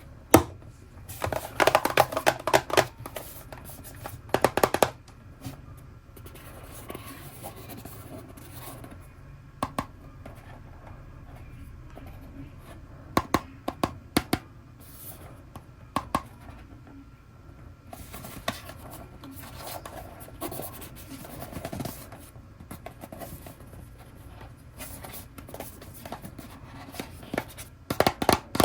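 Packaging being handled and opened by hand for a blind-box toy unboxing: scattered scratching, crackling and sharp clicks over a steady low hum, in irregular clusters.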